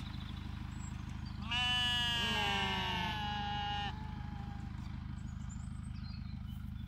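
A sheep bleats once, long and loud, about a second and a half in, with a second lower voice briefly overlapping it. Under it a compact tractor's diesel engine idles with a steady low hum.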